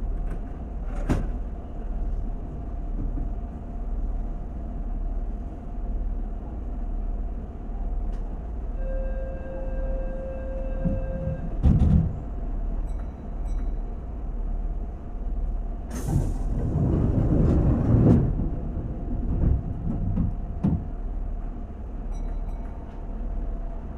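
Keihan 2200-series train standing at a station, its equipment giving a steady hum. About nine seconds in a buzzer tone sounds for nearly three seconds, then a thump, and a few seconds later a loud rush of air: the doors closing ahead of departure.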